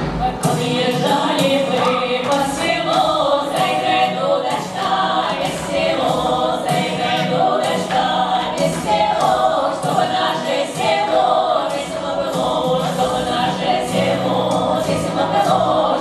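Women's folk vocal ensemble singing a Russian folk song together into microphones, over an accompaniment with a steady beat.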